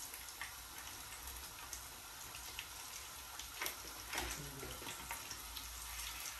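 Besan-coated fish pieces frying in hot oil: a steady sizzle with scattered small crackles and pops.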